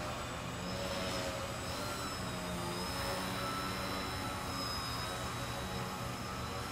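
Electric motor and propeller of a small EPP foam RC stunt plane in flight, a steady whine whose pitch drifts up and down as the throttle changes.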